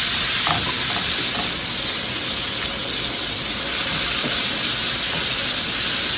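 Capers frying in butter and olive oil with garlic in a pan, a steady loud sizzle. It is sizzling up a little too much, a sign the heat is too high.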